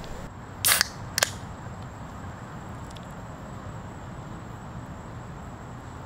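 A beer can cracked open: a short loud hiss a little under a second in, then a single sharp click of the ring-pull tab.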